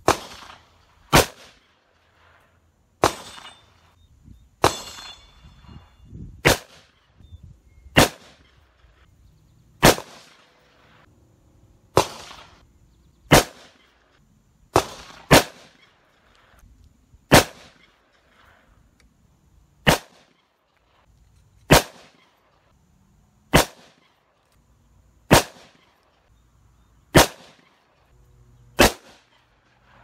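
Smith & Wesson revolver firing about eighteen single shots at a slow, steady pace, one every one and a half to two seconds, each a sharp crack with a short echo after it.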